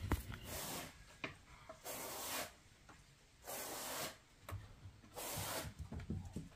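Four short rasping, rubbing noises about a second and a half apart, with soft light knocks between them near the end.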